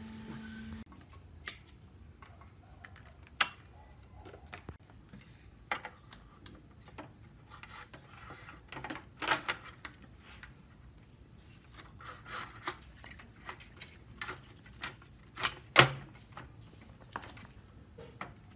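A steady hum stops about a second in. Then come scattered clicks, knocks and light rubbing as the TV's circuit board chassis and its wires are handled on a wooden workbench, with one sharp knock near the end the loudest.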